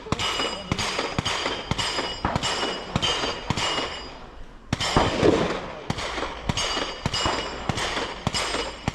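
Several handguns firing in a running string of sharp shots, about three a second, some overlapping, with a louder, closer shot about five seconds in.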